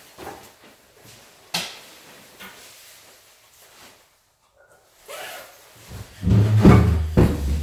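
Handling noise from a motorcycle backpack and its straps being worked on the wearer: rustling and rubbing, with a sharp click about a second and a half in. Near the end come heavy, low bumps and rubbing against the microphone.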